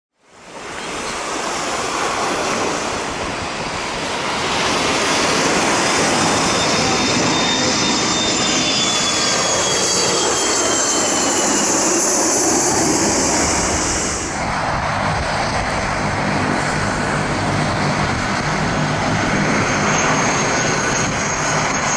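McDonnell Douglas MD-80-series jet airliner passing low on landing approach, its engine roar fading in from silence and its high whine falling in pitch as it goes by. About 14 seconds in, the sound switches abruptly to an ATR twin turboprop on approach: a steady propeller drone with a steady high whine.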